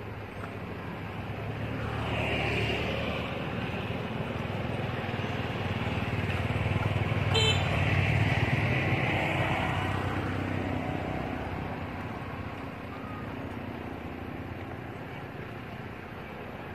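Road traffic passing: a steady rumble that swells about two seconds in, swells louder again around eight seconds, then fades.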